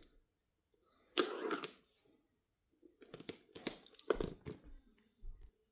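A cardboard product box being opened by hand: a short scrape about a second in, then a run of light clicks and rustles as the packaging is handled.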